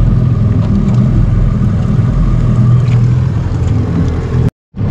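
A boat's motor idling with a steady low hum. The sound cuts out for a split second near the end.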